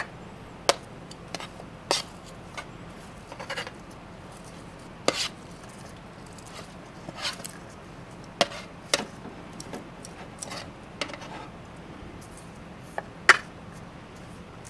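Metal tongs and a baking pan clacking against a plate as roasted Brussels sprouts are scraped off the pan and dropped onto it: a string of sharp, irregular clicks and knocks, a second or so apart.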